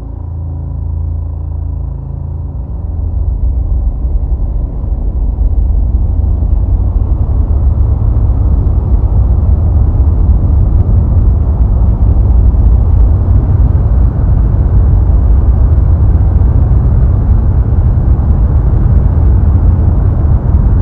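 A loud, low rumbling drone that swells over the first six seconds and then holds steady. It starts out with a few steady tones and becomes a dense, heavy rumble.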